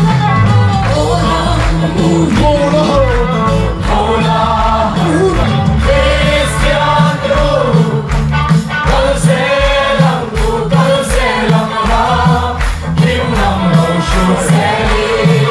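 Gospel worship music: a group of voices singing together over loud instrumental backing with a steady beat.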